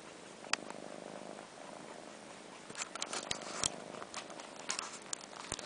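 Four-month-old kittens purring steadily while one suckles on its sibling's long fur as if nursing, with wet slurping clicks that come thick and fast from about three seconds in.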